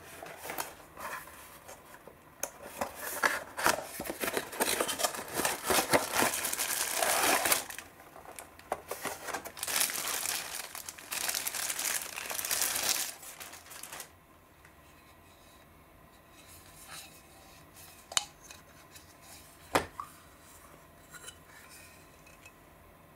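Clear plastic bag and cardboard packaging crinkling and rustling as a single-slice hot sandwich maker is unwrapped, stopping about fourteen seconds in. After that, quieter handling with two sharp clicks of the metal sandwich-maker plates near the end.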